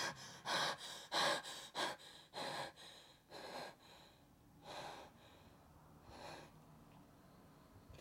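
A frightened woman's rapid gasping breaths, about two a second at first, then slowing and growing fainter until they die away about six and a half seconds in.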